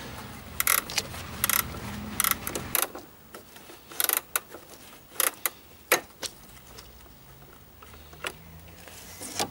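Irregular clicks and short metallic knocks from hand work on parts in a car's engine bay, around the auxiliary drive belt, over a low hum that drops away about three seconds in.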